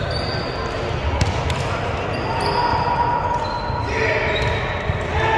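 Indoor volleyball rally: sharp slaps of the ball being played, athletic shoes squeaking briefly on the court floor at several pitches, and indistinct voices of players and onlookers throughout.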